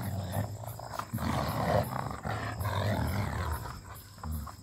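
German Shepherd and Rottweiler growling in a tug-of-war over a tyre: a deep, continuous pulsing growl, loudest in the middle and weakening in the last second.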